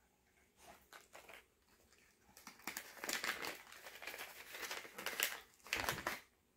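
Packaging crinkling and rustling in the hands as a crystal is unwrapped. It comes in a few short bursts at first, becomes near-continuous after about two and a half seconds, and ends with a heavier rustle shortly before it stops.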